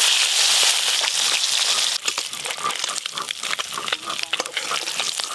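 Parshe fish frying in hot oil. A loud, steady sizzle for the first two seconds settles into a quieter crackle with many small pops.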